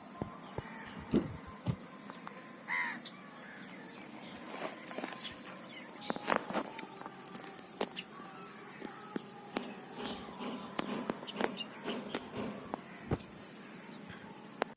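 Outdoor ambience of insects droning steadily at a high pitch, with scattered short bird chirps and small clicks. One louder bird call comes about three seconds in.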